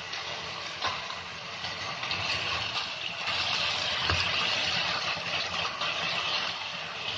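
Matchstick-cut potatoes sizzling in hot oil in a nonstick wok, a steady hiss, stirred with a silicone spatula that knocks lightly against the pan about a second in and again about four seconds in.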